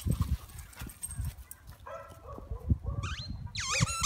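Squeaky dog toy squeaking a couple of times near the end as a dog bites it, over low thumping and rustle.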